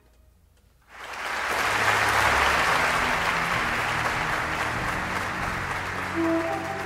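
Audience applauding at a live concert. The applause starts suddenly about a second in, after a moment of near silence, then slowly thins. Sustained instrument notes begin under it near the end.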